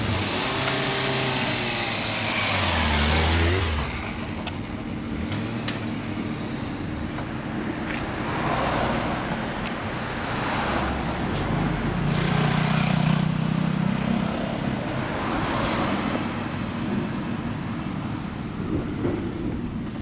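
Motorcycles fitted with aftermarket exhausts revving and riding off one after another, their engine pitch rising and falling in the first few seconds, with a louder steady engine passage about two-thirds of the way through, among passing road traffic.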